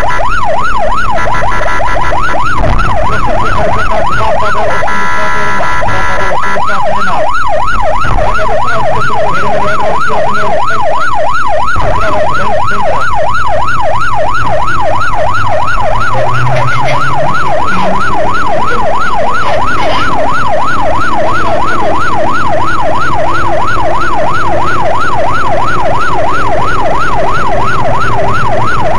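Police car siren on a fast yelp, a rapid up-and-down wail about three times a second, with a steady high tone briefly near the start and around five seconds in. Car engine and road noise run underneath.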